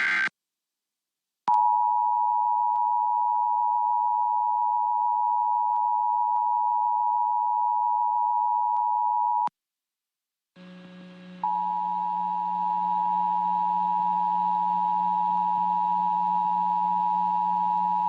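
Emergency Alert System attention signal: a steady two-tone beep that comes in about a second and a half in, holds for about eight seconds and cuts off. After a short gap it starts again about eleven seconds in over a low hum and runs on. It opens with the last split second of the screeching digital SAME header burst.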